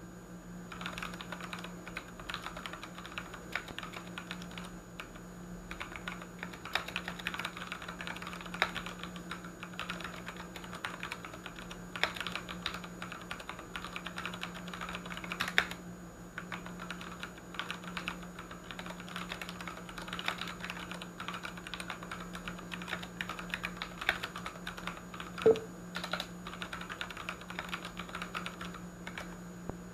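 Typing on a Ducky One 2 mechanical keyboard with Cherry MX Brown switches: fast, continuous key clacks starting about a second in, with a brief lull around six seconds and a few louder single knocks. A steady low hum lies underneath.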